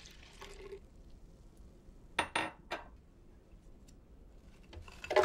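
Frozen peach slices tipped from a bowl into a Vitamix blender container holding milk: a few sharp clinks about two seconds in, then a louder clatter near the end.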